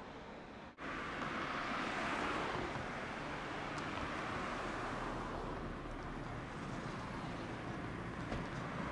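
Street traffic heard from a distance: a steady hiss of passing vehicles that swells slightly about two seconds in, after the sound briefly cuts out near the start.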